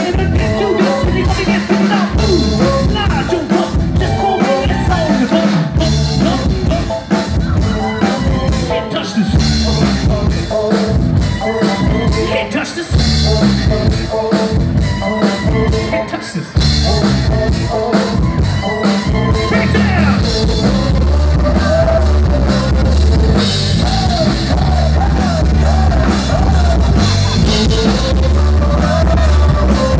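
Live rock band playing loud through a stage PA, with drum kit, bass guitar and singing. About two-thirds of the way in the bass gets heavier and more sustained.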